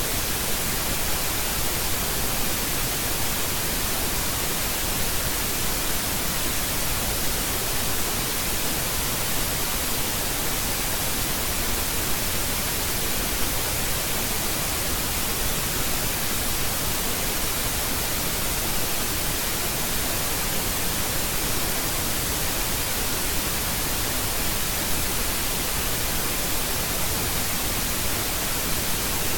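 Steady, even hiss of static noise, brightest in the high end, with no other sound.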